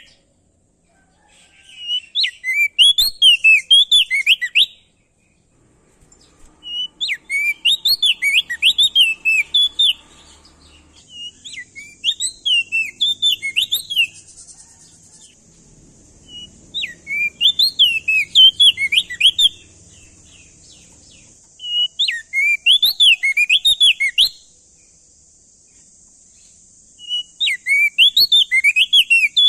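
A prenjak daun (opior jambul, crested white-eye) singing loudly: six phrases of rapid, rising-and-falling whistled notes, each about three seconds long, separated by short pauses. A faint steady high hiss, like insects, runs in the background from about a third of the way in.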